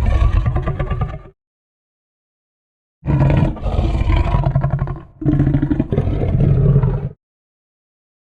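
Monster roar sound effects: a roar that ends about a second in, then after a stretch of dead silence two long roars back to back, each about two seconds.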